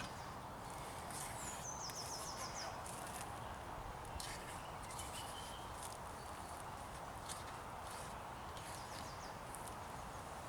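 Small birds singing in short high chirping phrases, several times, over a steady background hiss of woodland ambience.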